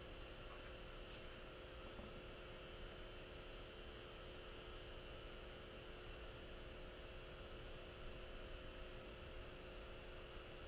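Low, steady hum with a faint hiss and a few constant tones, unchanging throughout, with no distinct events.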